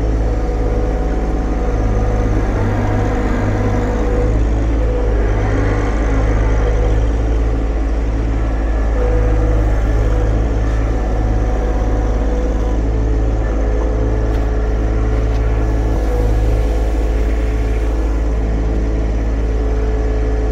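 John Deere 1025R compact tractor's three-cylinder diesel engine running steadily, a constant low drone with a steady whine above it.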